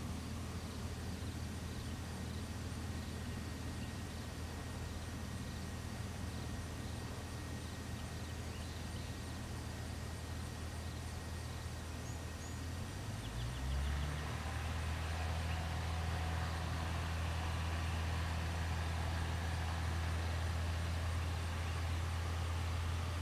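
Cessna 150M's four-cylinder Continental O-200 engine running steadily at low power, then about 13 seconds in rising quickly in pitch and getting louder as the throttle is opened to full power for the takeoff roll, holding there steadily.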